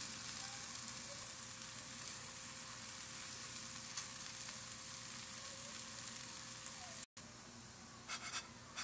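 Scrambled eggs with bacon and peppers sizzling in a frying pan with the heat just turned off, a steady hiss. It cuts off about seven seconds in, then a quieter sizzle follows with a few light clicks near the end.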